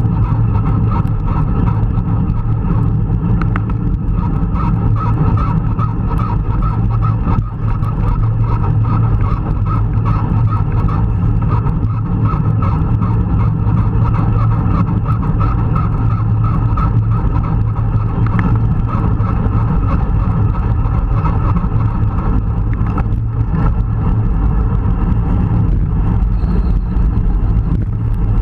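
Steady wind rushing over the microphone of an action camera on a road bike at racing speed, mixed with road noise from the bike rolling over tarmac.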